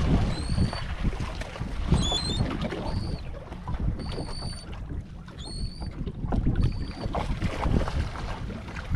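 Wind buffeting the microphone and water against the hull of a small fiberglass boat drifting at sea, with short high chirps repeating about once a second.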